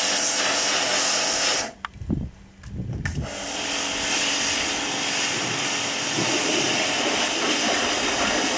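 Pressure-washer wand jetting water into the pool, a steady hiss and splash as it blasts slime off the pool floor. The hiss breaks off for about a second and a half, just under two seconds in, with a couple of low knocks, then starts again.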